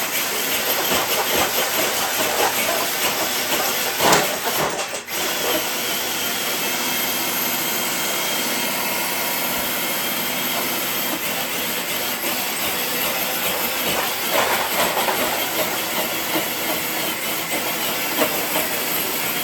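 RC truck's motor and drivetrain running under load with a steady hissing whine as it drags a weighted pull sled, with a brief louder knock or disturbance about four seconds in.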